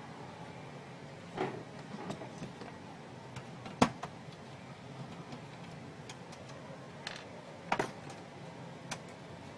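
Scattered clicks and knocks over a faint steady background, the loudest a sharp click a little under four seconds in, with a few more near the end.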